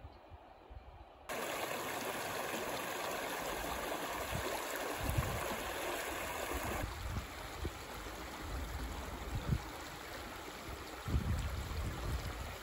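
Shallow stream rushing and rippling over stones and gravel, cutting in abruptly about a second in and turning a little quieter past the middle.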